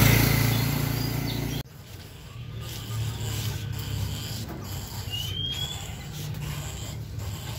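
Loud rustling handling noise from a basket of wire cage rat traps being carried, cut off abruptly about a second and a half in. Then it is quieter, with a faint low hum, a few faint clicks and one short rising squeak a little after five seconds in.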